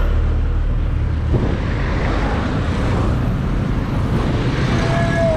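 Road traffic on a busy city street: vehicle engines running and cars passing, with a heavy low rumble in the first second or so. A brief steady tone sounds near the end.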